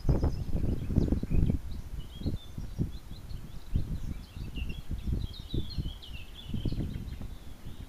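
Wind buffeting the microphone in irregular low gusts, strongest in the first second and a half, with small birds chirping and twittering high above it.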